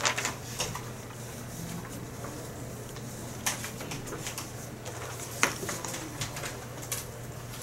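Quiet classroom room tone: a steady low hum with a few sharp clicks and taps, several seconds apart, from people working at desks.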